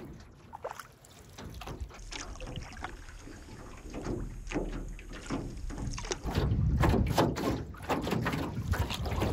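Canoe paddle strokes through lake water, with splashing and water lapping along the hull. From about six seconds in, wind rumbles on the microphone.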